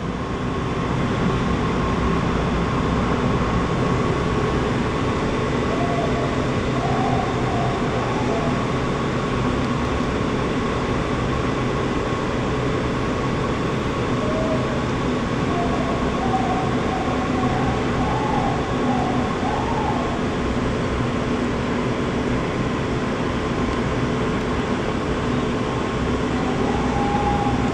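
Vertical wind tunnel running at flying speed: a loud, steady roar of rushing air and fans, with a steady hum running through it.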